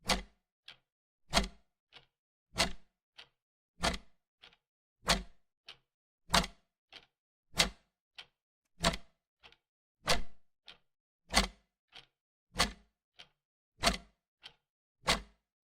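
Wall clock ticking: a sharp tick-tock with a louder tick about every second and a quarter and a softer tick halfway between, in a steady, even rhythm.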